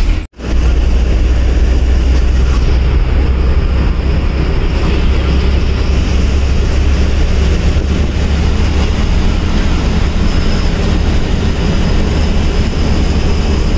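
Bus engine and drivetrain running steadily while the bus drives along, heard from inside the driver's cabin: a constant low drone with road and body noise. The sound cuts out for an instant about a third of a second in.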